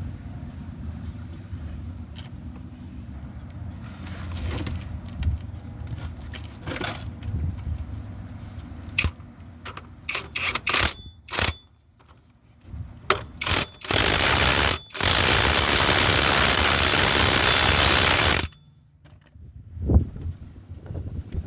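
Metal hand tools clinking and knocking against a car's front wheel hub and its bolts as the new hub is fitted, then a loud, steady rushing noise for about four seconds with a brief break near the start, and a sharp knock near the end.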